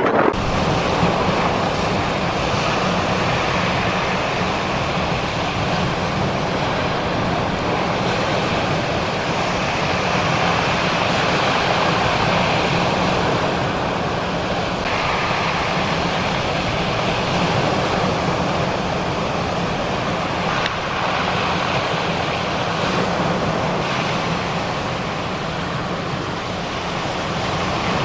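Strong wind buffeting the microphone over breaking surf: a steady rushing roar of rough sea with low wind rumble.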